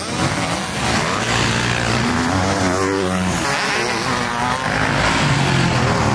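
Motocross dirt bike engine revving as it is ridden, its pitch rising and falling through throttle changes and gear shifts.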